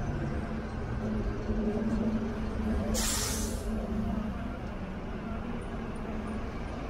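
A large vehicle's engine running with a steady low hum, and a short hiss of released air from its air brakes about three seconds in.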